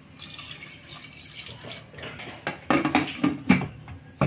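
Water pouring into an aluminium pressure cooker over raw mutton pieces, then the metal lid clattering in a series of sharp knocks as it is fitted and clamped shut.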